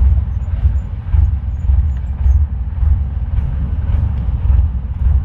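Wind buffeting the camera microphone: an uneven, pulsing low rumble with a faint hiss of sea and boat noise beneath it.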